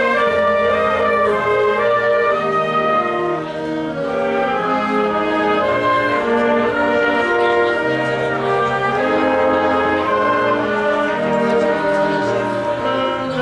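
Wind band playing: clarinets, saxophones and low brass holding chords that change every second or so over a moving bass line.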